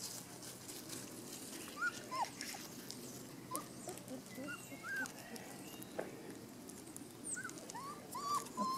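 Golden retriever puppy whimpering: short, high whines, scattered and coming more thickly near the end.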